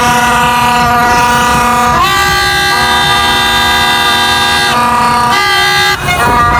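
Plastic toy trumpets (vuvuzela-style baja horns), several blown at once in long, loud held notes that layer over each other. The notes change about two seconds in and again near five seconds, with a short break around six seconds.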